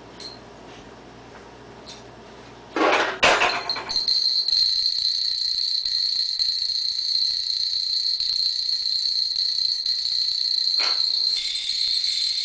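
Oji metal-rod effects instrument: two sharp metallic strikes about three seconds in, then a sustained, high, shimmering metallic ringing, with another strike near eleven seconds.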